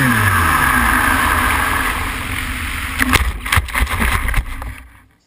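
An RC plane's electric motor whines down in pitch as the throttle is cut, and the rush of air past the plane fades as it glides in. Then a few sharp knocks and rustles as it touches down and bumps to a stop in dry grass.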